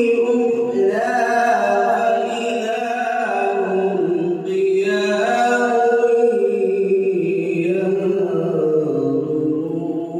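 A man's solo voice reciting the Quran in melodic tajwid style (tilawat), holding long ornamented phrases that glide up and down in pitch. There is a brief break about four and a half seconds in, and the voice sinks lower toward the end.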